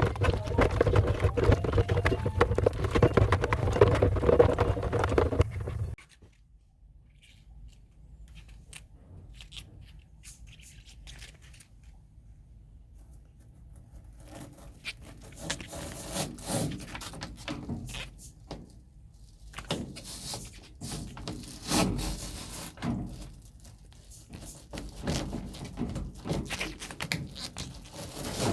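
A loud steady noise that cuts off abruptly about six seconds in, followed by scattered scrapes, rubs and knocks of hand cleaning work around a washing machine's drain outlet.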